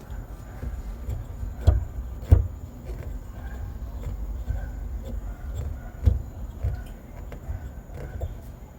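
Scattered knocks and bumps of a wrench and plumbing fittings being handled under a bathroom sink, over a low steady rumble. The sharpest knocks come about a second and a half and two and a half seconds in, with another near six seconds.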